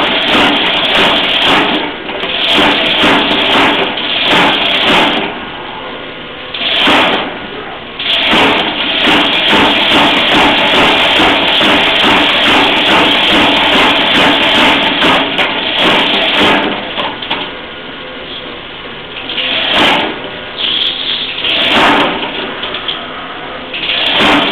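Homemade 100 lb mechanical power hammer with a coil-spring ram, Beaudry utility-hammer style, running on a test in bursts of rapid repeated blows. A long unbroken run comes in the middle, with shorter bursts and pauses before and after.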